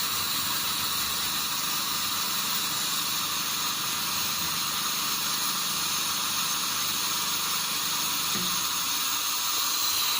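A steady hiss that does not change, cutting off abruptly at the very end.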